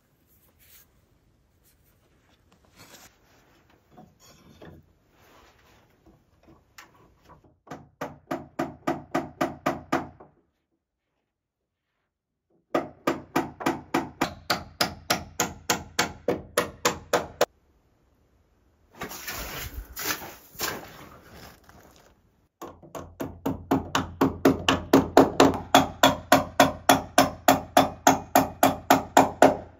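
Claw hammer driving nails through a steel bracket into a timber beam: quick, evenly spaced strikes, about four or five a second, in three runs broken by short silences, with a few softer taps before them.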